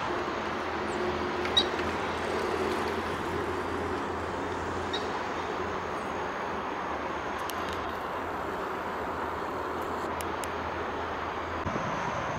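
Steady rushing noise of city traffic, with a low rumble underneath that drops away near the end and a few faint clicks.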